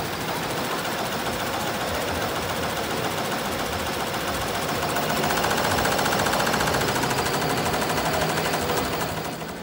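SWF two-head multi-needle embroidery machine stitching, its needles going up and down in a fast, even rhythm of strokes. It grows louder about five seconds in.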